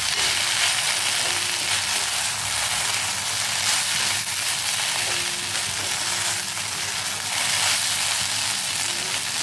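Chopped okra frying in oil in a kadai, a steady sizzle, while a spatula stirs it around the pan.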